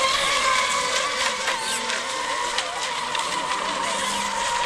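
Several electric RC racing boats running flat out together, their motors and propellers making overlapping high whines that waver up and down in pitch as the boats pass and turn.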